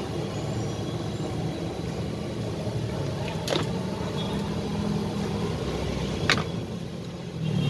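Steady low rumble of road traffic, with two short sharp clicks, one about three and a half seconds in and another about six seconds in.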